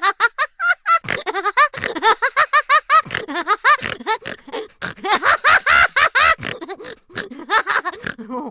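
Cartoon laughter sound effect: a long, high-pitched laugh in quick rising-and-falling syllables, several a second, with brief pauses. It cuts off abruptly near the end.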